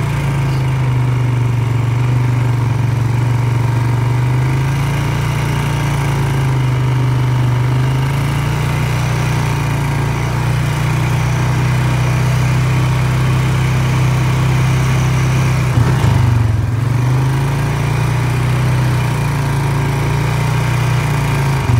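ATV engine running steadily at low speed on a dirt woods trail, its pitch dipping and rising a few times. A brief knock about 16 seconds in.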